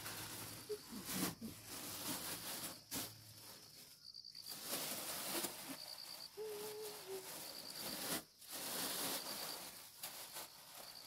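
An insect chirping in short, rapid pulsed bursts, repeating about every second and a half, over a steady hiss with soft rustling and a few clicks.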